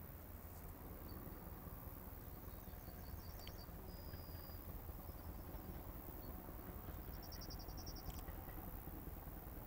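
Faint rural ambience: small birds giving a few short high chirps and trills, one a brief clear whistle about four seconds in and a fast trill near the end, over a low steady rumble.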